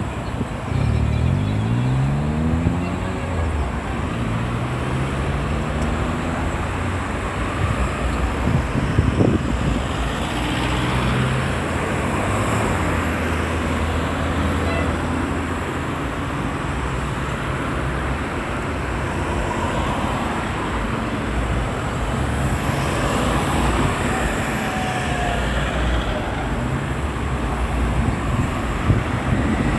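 Continuous road traffic: cars and other motor vehicles passing and pulling away, their engines rising in pitch as they accelerate, loudest in the first few seconds.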